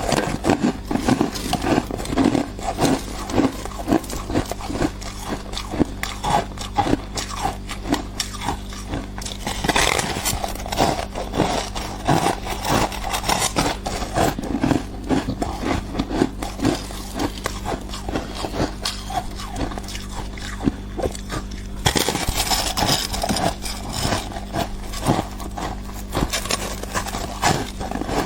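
Close-miked chewing and crunching of thick, crispy slabs of freezer frost ice: a steady stream of brittle crackles and crunches, with bursts of harder biting about ten seconds in and again near the end.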